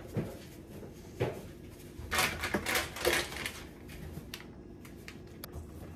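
A plastic spice packet crinkling and rustling as it is handled and shaken out, loudest for about a second in the middle, with a few light clicks and taps before and after.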